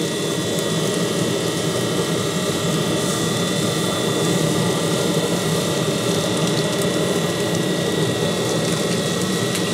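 Pellet grill running with its fan going: a steady mechanical hum with a thin high whine that does not change.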